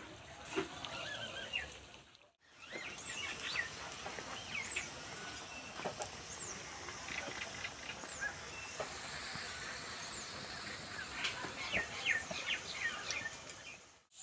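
Vegetable spring rolls deep-frying in oil in a kadai, a steady gentle sizzle and bubbling with occasional crackles on low heat. Small birds chirp in the background. The sound cuts out briefly about two seconds in.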